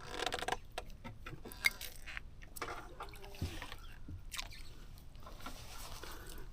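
Scattered light knocks and clicks with faint water sloshing, as a freshly caught fish is handled in a small fishing boat.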